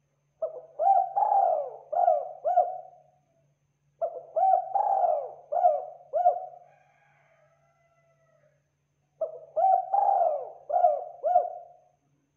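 Spotted dove cooing: three phrases of five coos each, a few seconds apart, the third coo of each phrase the longest.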